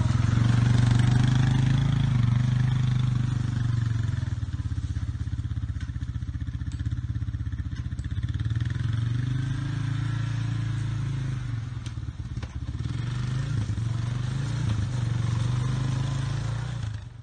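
Honda TRX300 quad bike's single-cylinder four-stroke engine running as it is ridden across grass, fading as it moves off and growing louder again as it comes back near the end.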